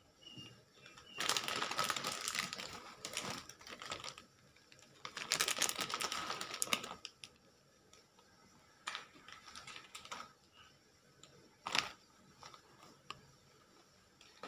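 Dry instant ramen and its plastic sauce packet handled over a frying pan: crinkling and rustling in two long spells, then a few sharp clicks and taps.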